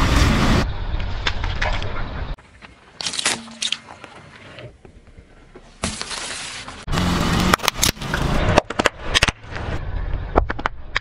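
A car tyre slowly rolling over and crushing soft and crunchy objects on asphalt, in several short clips that cut abruptly from one to the next. The crushing is loudest at the start, and a run of sharp cracks and pops comes in the second half.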